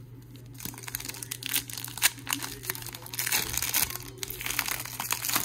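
Foil wrapper of a Panini Prizm trading-card pack crinkling as it is handled and torn open. The crackling starts about half a second in and is loudest around two seconds in.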